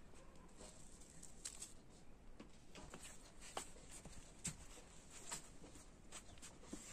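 Quiet room tone with faint, scattered clicks and soft taps, about one a second: the small handling sounds of people eating rice by hand from plates.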